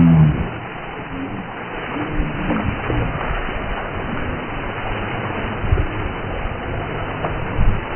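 Ice water pouring from a large bucket and splashing over a seated man and onto the ground, slowed down into a deep, steady rush. A drawn-out low voice sounds at the very start.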